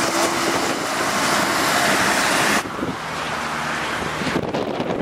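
Slow lorry traffic on a slushy motorway: tyre and engine noise mixed with wind on the microphone. About two and a half seconds in it cuts abruptly to a quieter scene with a low, steady engine hum under the wind.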